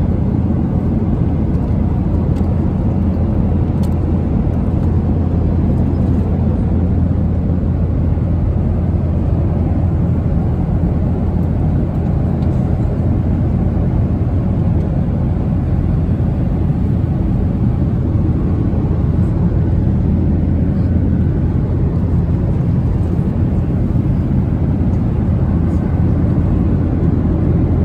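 Steady low cabin drone of a Boeing 737-900 airliner in flight, the CFM56 engines and airflow making an even rumble inside the economy cabin.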